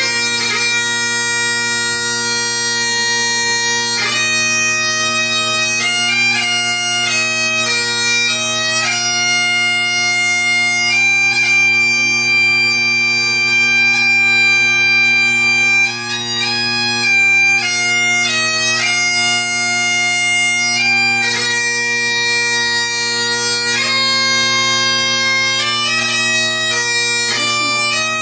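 Highland bagpipes playing a tune over their steady drones, the melody moving between held notes with one long note in the middle.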